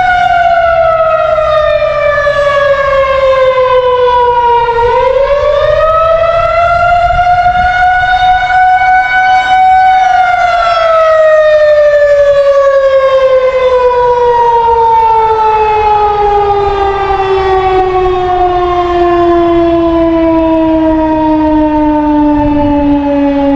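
Federal Signal 2001 electromechanical tornado siren wailing. Its tone falls for about five seconds and climbs back over the next five, then slides slowly and steadily down in pitch as the siren winds down.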